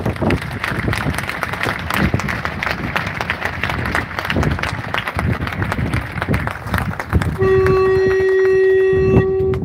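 Crowd applauding, a dense patter of many hands clapping. About seven seconds in, a single steady horn blast of one pitch sounds over it for about two seconds.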